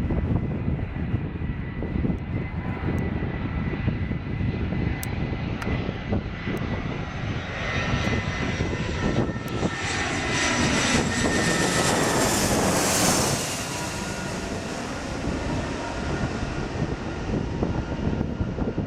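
Airbus A320-family jet airliner on landing approach passing close by. Its engine whine and rumble build to a peak about ten to thirteen seconds in, the engine tones dropping in pitch as it goes past, and then the sound settles lower.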